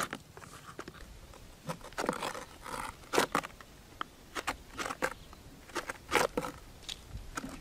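A knife cutting and scraping the thin black plastic of a bucket cut into spikes: irregular scraping strokes mixed with sharp plastic clicks and snaps.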